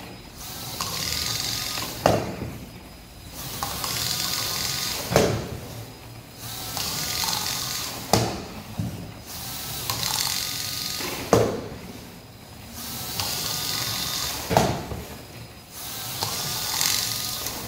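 Small soccer robot's drive motors whirring in repeated runs of a second or so, each ending in a sharp knock as the ball is shot at the goal, about every three seconds.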